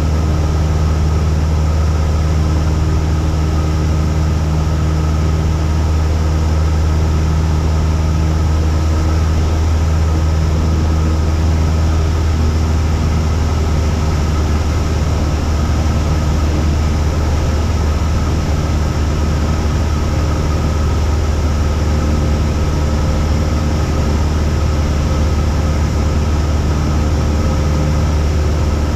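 Cessna 172's single piston engine and propeller running steadily in flight: an even, low drone.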